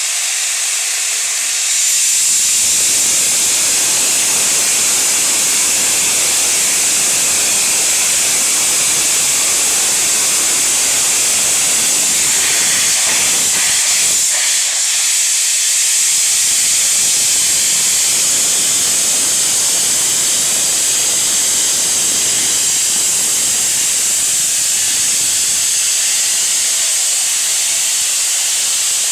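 Rebuilt Bulleid Battle of Britain class steam locomotive 34053 Sir Keith Park starting away with its cylinder drain cocks open, steam hissing loudly and steadily. The hiss gets louder about two seconds in and dips briefly near the middle.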